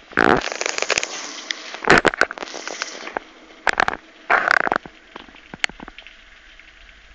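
Heavy storm rain hissing steadily, broken by four loud rough bursts of noise buffeting the phone's microphone, with scattered sharp clicks of drops.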